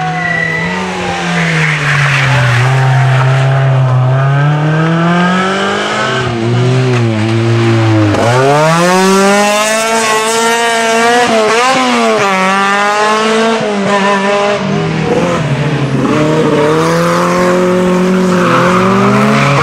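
Rally car engines revving hard and dropping back again and again through gear changes and lifts as several historic rally cars pass one after another, among them a SEAT Ibiza GTi 16v and a Renault 5 Turbo. The revs climb steeply and fall in quick succession in the middle.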